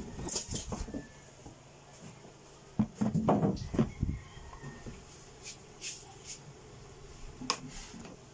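Clear plastic incubator housing being handled: knocks, clicks and rattles of hard plastic, busiest about three seconds in, with a few single clicks later.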